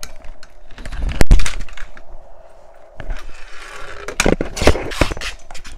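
Knocks, clicks and scraping from handling, with one sharp knock about a second in and a cluster of clicks near the end.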